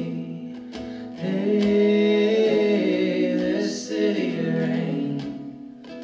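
Folk band playing live: acoustic guitar strumming under long held sung notes in vocal harmony, with no clear words.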